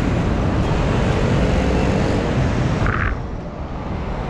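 Road noise of passing city traffic, mixed with wind rumbling on the microphone of a camera worn by a cyclist riding along the road. It is a steady, dense noise that eases a little about three seconds in.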